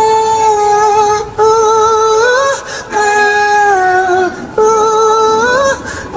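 A high singing voice sustains four long wordless notes, most gliding upward at the end and one dipping down, with short breaths between them.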